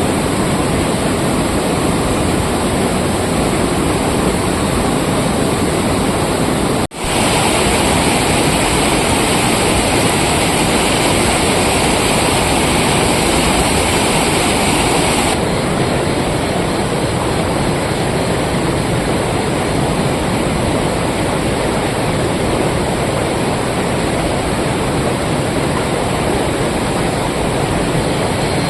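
Steady, loud rushing noise that cuts out for an instant about seven seconds in. It comes back hissier until about halfway through, then returns to its earlier sound.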